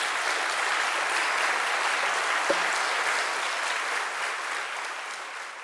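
Audience applauding, a steady dense clapping that thins and fades over the last second or so.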